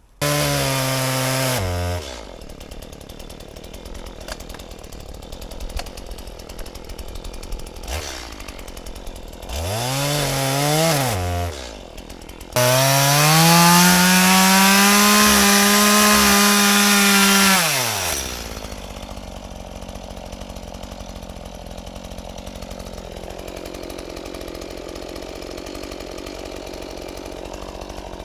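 Stihl MS180 two-stroke chainsaw running: revved at the start and dropping to idle, blipped once about ten seconds in, then held at high revs for about five seconds near the middle before settling back to a steady idle.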